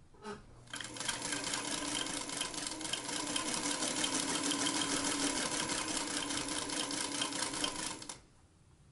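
Singer Featherweight 221 (c. 1951) electric sewing machine stitching a seam, its mechanism whirring with a fast, even clatter of needle strokes. It starts after a couple of clicks about a second in and stops suddenly near the end.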